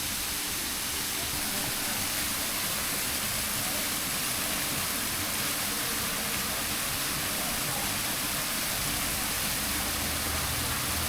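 Steady, even outdoor hiss with no distinct events, its energy strongest in the high range.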